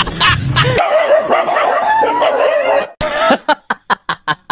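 A dog yelping and whining in high, wavering cries, cut off at about three seconds by music with a steady plucked beat of about four notes a second.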